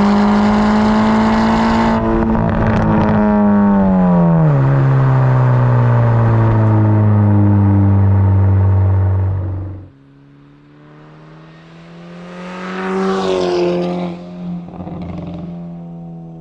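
Volkswagen MK6 GTI's turbocharged four-cylinder engine heard through its exhaust, held at speed and then dropping in pitch about four seconds in as the revs fall. It cuts off suddenly near the middle, and a quieter rev then rises and falls.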